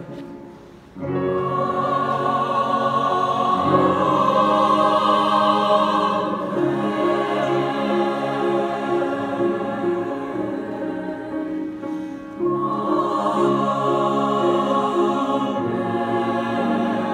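Mixed-voice choir singing held chords, with a short break between phrases about a second in and another brief dip around twelve seconds before the next phrase enters.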